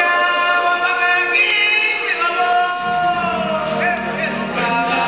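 Music with choir-like singing in long held notes; a low bass part comes in about three seconds in.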